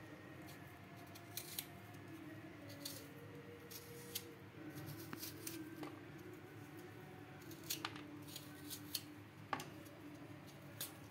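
Vegetable peeler scraping the brown skin off a piece of fresh coconut meat: faint short scrapes and clicks at irregular intervals, a little over a second apart, over a faint steady hum.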